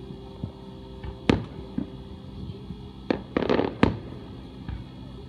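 Fireworks aerial shells bursting: one sharp bang about a second in, then a second bang, a quick run of crackling bangs and a last sharp bang between three and four seconds in.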